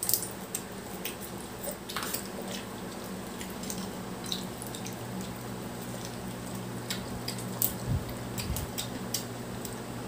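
Wet, close-miked eating sounds from a garlic butter seafood boil: scattered sharp clicks and squishy, dripping noises of saucy seafood being handled and eaten, over a steady low hum.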